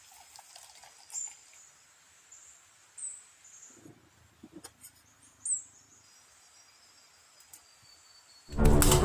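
Three short, high-pitched bird chirps a couple of seconds apart, each sliding downward, over a quiet outdoor background with a few soft clicks. Loud music starts near the end.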